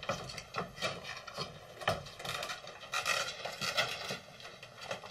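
Cat's claws catching and scraping on a mesh screen as it climbs, an irregular run of short scratchy clicks.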